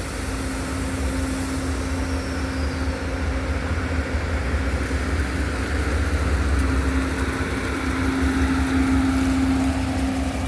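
Amtrak passenger train's diesel-electric locomotives pulling out under power, engines running with a low rumble and a steady hum, growing gradually louder.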